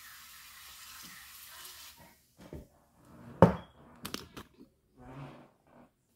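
Aerosol can of hair mousse hissing as foam sprays out, stopping about two seconds in. About a second and a half later comes a loud knock, followed by a few quick clicks and a short rustle.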